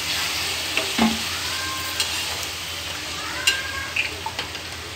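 Onion-tomato masala sizzling in a hot pan as a steel slotted spatula stirs it, with water just added to make the gravy. The spatula clacks sharply against the pan several times.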